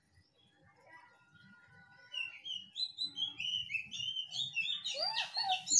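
A quick series of short, high chirping calls, climbing step by step in pitch and growing louder, with the loudest and fullest notes near the end.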